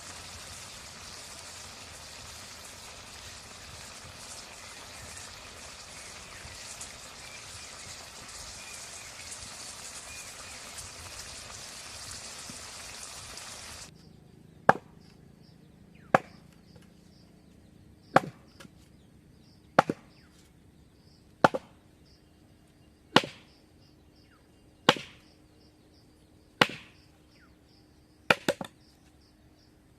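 A steady hiss that cuts off abruptly about halfway through, followed by slow, regular chopping: about nine sharp blade strokes, roughly one every second and a half to two seconds, one of them a quick double stroke.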